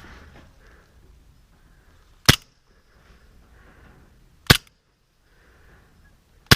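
Airsoft gun firing three single shots, evenly spaced about two seconds apart, each a sharp crack.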